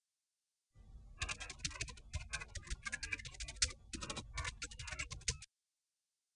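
Typing sound effect: a quick run of keystroke clicks that starts about a second in and stops suddenly about five and a half seconds in.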